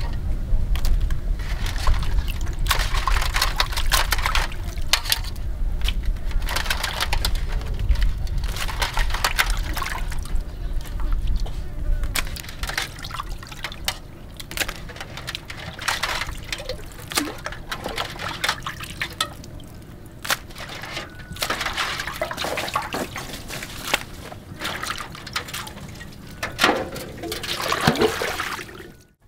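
Water dripping and splashing as mantis shrimp are lifted out of a basin of water, in many irregular spells. Near the end, the aluminium basin's water is tipped out and splashes onto concrete.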